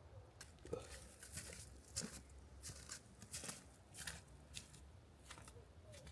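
Footsteps crunching through wet, slushy snow: a faint, uneven run of steps, roughly one or two a second.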